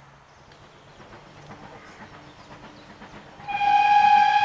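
Steam locomotive whistle blowing one loud, steady note that starts suddenly about three and a half seconds in and is still sounding at the end.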